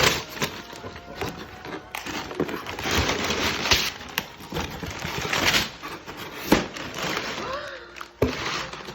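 Toy packaging being torn open by hand: a series of rough ripping and crinkling sounds with sharp clicks and knocks between them.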